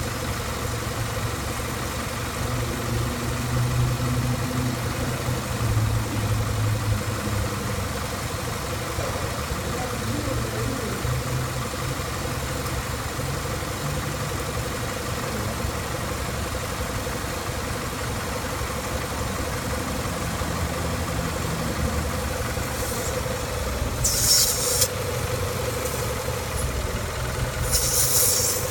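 Car engine idling steadily under the hood. Two short hissing bursts come near the end.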